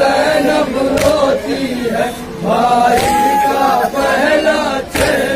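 Group of men chanting a noha, a Shia Muharram lament, in unison through a microphone, with long drawn-out notes. A couple of sharp slaps, hands striking chests in matam, come about a second in and near the end.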